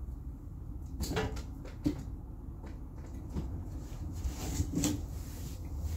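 A few light clicks, knocks and rustles of handling at a worktable, the sharpest knock about two seconds in, over a steady low hum.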